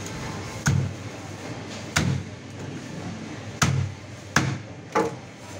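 Steel meat cleaver chopping through a pangasius catfish into a thick wooden chopping block: five sudden chops at uneven intervals.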